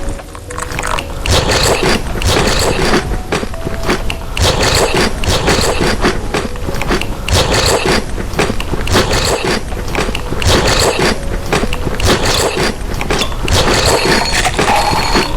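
Close-miked eating sounds: biting and chewing food, heard as a dense, continuous run of sharp clicks.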